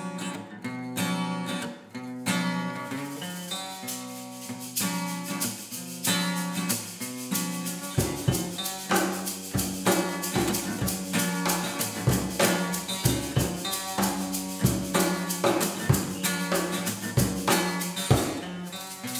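Acoustic guitar played with a cajon and a hand shaker; the cajon's low beats come in about eight seconds in, and the music cuts off suddenly at the end.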